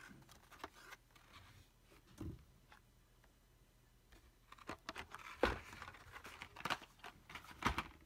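Hot Wheels blister-card packages and a cardboard box being handled: soft crinkling and light taps, then busier rustling in the second half with a couple of sharp knocks.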